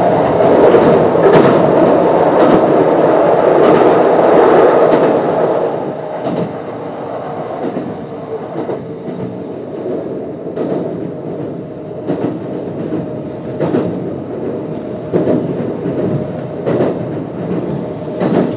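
Kintetsu 1259 series electric train (Hitachi GTO-VVVF control) running. A loud wheel-and-rail rumble drops away about six seconds in as the train eases toward its next stop. After that a steady hum remains, with sharp rail-joint clacks roughly every one and a half seconds.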